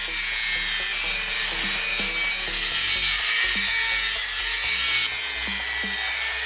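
Steady abrasive rasping from the knife being shaped, continuous and without breaks, over faint background music with a repeating low figure.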